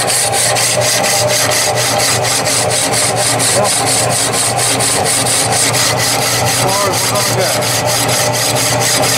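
Power metal-cutting saw working its way through a rusty water-pump cylinder: a steady rasping cut with a rapid, even pulse over the low hum of the saw's motor.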